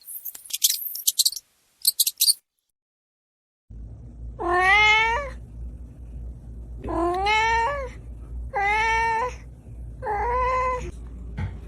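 A domestic cat meowing four times, each call rising in pitch and lasting under a second, over a low steady hum. Before it, about two seconds of high, rapid chirping from another source.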